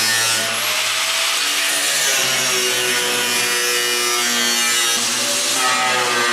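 Angle grinder cutting through the rusted sheet-steel floor of a pickup bed, a loud, steady, hissing grind. The cut clears room for the new frame's spring pockets.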